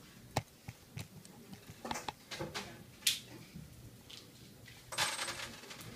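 Small metal nuts clicking and clinking as they are handled and stacked, a few separate sharp clicks, then a short clatter about five seconds in.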